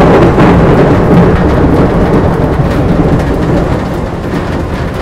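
Thunder: a loud crack breaking just before the start, rumbling on for about three seconds and then dying away, over the steady hiss of rain.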